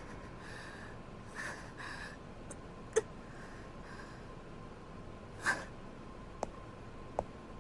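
A woman's soft, strained breathing, a few breaths and one sharper intake, over a faint steady hum, with a few light clicks.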